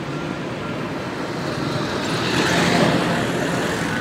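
Road traffic noise from cars and motorcycles passing on a busy road, a steady hum that swells as one vehicle passes close about two and a half seconds in.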